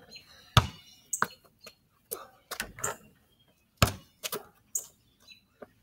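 A basketball being shot at a backyard hoop and bouncing off the rim and the ground: a string of sharp thuds and knocks, the loudest about half a second in and again near four seconds.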